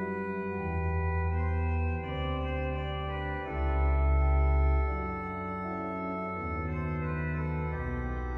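Two-manual digital organ played with hands and pedals: held chords over a pedal bass line whose notes change every second or so. It swells loudest in the middle.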